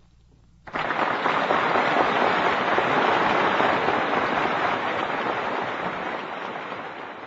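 Audience applauding, breaking out suddenly just under a second in after the piano piece ends, then slowly dying down.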